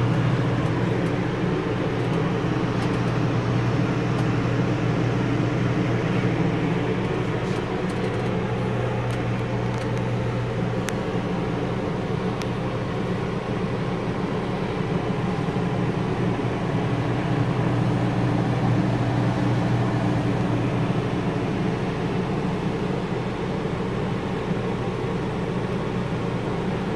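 Camper's air conditioner running with a steady hum of its fan and compressor, cooling the cabin.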